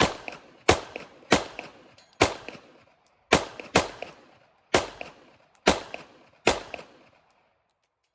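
Nine 9mm pistol shots from a Palmetto State Dagger fitted with a Tyrant threaded barrel and TCOMP compensator, fired at an unhurried pace of about one a second, each a sharp crack with a short trailing echo.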